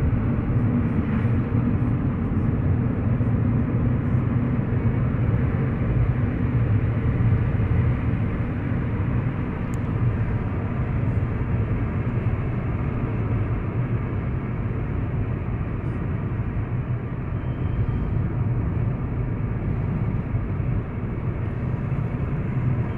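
Steady low rumble of road and engine noise inside the cabin of a car cruising along a highway.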